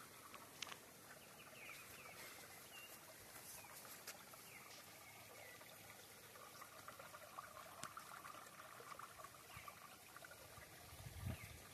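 Near silence: faint outdoor ambience with a few short, faint bird chirps and a low thump near the end.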